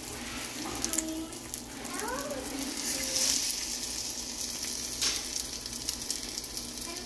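Egg omelette with chopped greens sizzling steadily as it fries in a nonstick pan, while a spatula folds and pushes it.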